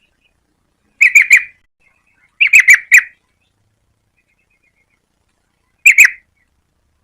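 Yellow-vented bulbul calling loudly in three short bursts of quick notes: three notes about a second in, four notes around two and a half seconds, and two more near the end.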